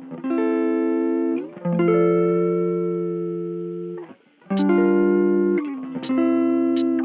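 Background music: a guitar playing slow, ringing chords that change every second or two, with a short gap about four seconds in.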